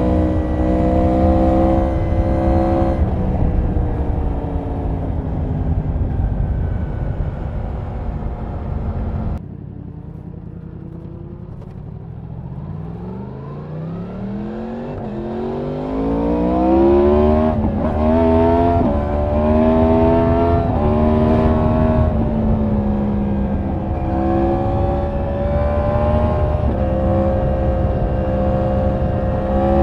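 Yamaha MT-10's crossplane inline-four and stock exhaust pulling on the road, with wind rush. The revs fall, then the sound drops away about nine seconds in as the throttle is closed. The pitch climbs steadily as the bike accelerates again, with several quick breaks for upshifts, then settles to steady cruising.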